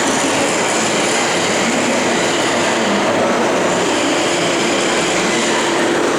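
Lathe running: a steady, loud mechanical noise with a faint steady hum that grows clearer about halfway through.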